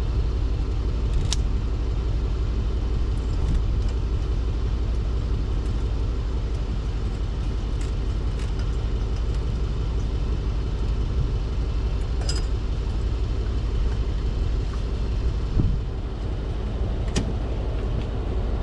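Steady low rumble of an idling vehicle engine, with a few brief sharp clicks scattered through it.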